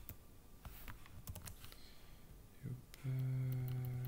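A few scattered computer keyboard keystrokes clicking. About three seconds in, a steady low hum starts, holds one pitch and is louder than the keystrokes.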